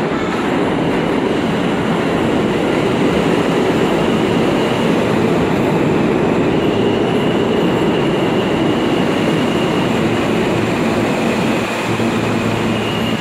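Loud, steady subway train noise in an underground station, with a faint high whine that comes and goes.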